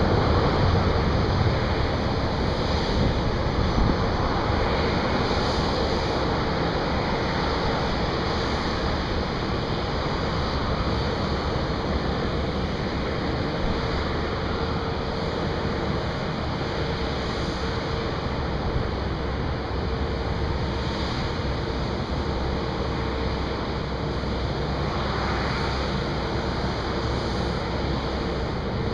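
Distant jet airliner engines running at low power: a steady rushing noise with a thin steady whine through it, mixed with wind on the microphone.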